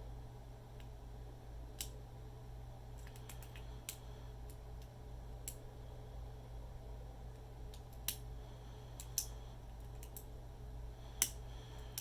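A hook pick working the wafers of a ten-wafer padlock under light tension: scattered faint clicks, about half a dozen spread irregularly, over a steady low hum.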